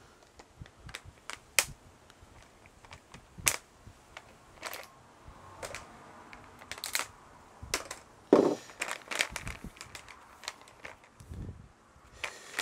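Irregular sharp clicks and metal clatter of hand tools being handled and sorted, with a louder knock about eight seconds in.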